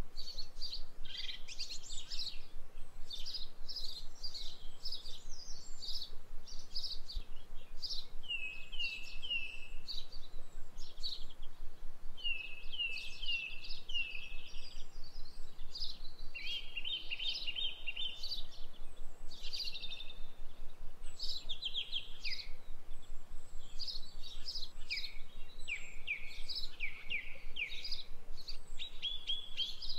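Small songbirds chirping and singing continuously: quick runs of short, high, downward-sliding notes, often three or four in a row, over a faint steady hum.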